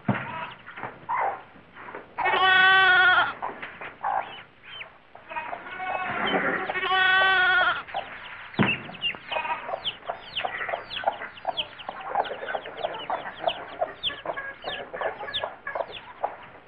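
A lamb bleating twice, each bleat long and wavering, a few seconds apart, followed by a steady run of chickens clucking with many short high calls.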